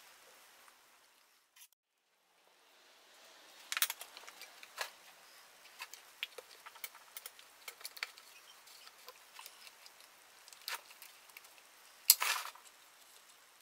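Small clicks, taps and rattles of plastic and metal parts handled while working at a Husqvarna chainsaw's carburetor and intake area, with a louder clatter about four seconds in and another near the end.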